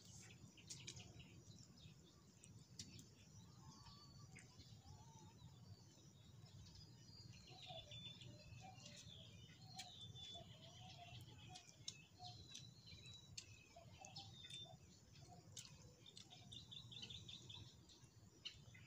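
Birds chirping faintly, many short calls, over a low steady background, with a few scattered small clicks.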